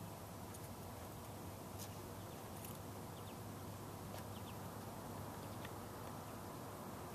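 Faint outdoor background noise with a steady low hum and a few faint, short ticks and chirps scattered through it.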